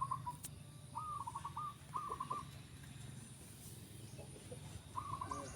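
Zebra doves (perkutut) cooing: short phrases of quick stepped coos, three in the first two and a half seconds and another near the end, over a steady low hum.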